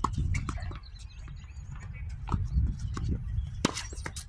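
Tennis rackets striking the ball during a doubles rally: a few sharp pops, one right at the start and the loudest about three and a half seconds in, over a steady low rumble.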